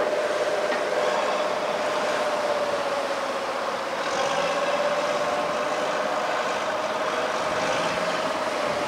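NZLAV eight-wheeled armoured vehicle driving out of the shallow surf and up the beach. Its diesel engine runs with a steady whine that dips slightly in pitch a few seconds in.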